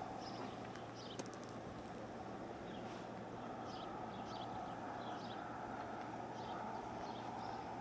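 Faint outdoor ambience: a steady hum with scattered short, high chirps over it.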